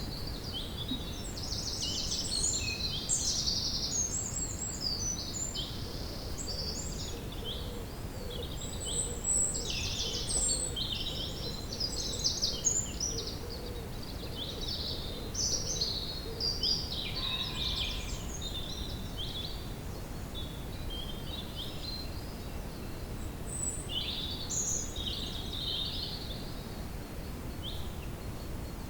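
Woodland birds chirping and singing, many short calls overlapping, busiest in the first half and sparser later, over a steady low rumble of outdoor ambience.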